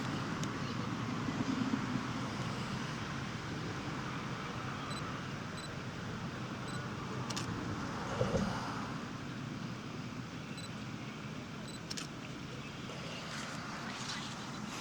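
Steady outdoor background noise, a low even rumble, with a few faint clicks and a brief swell about eight seconds in.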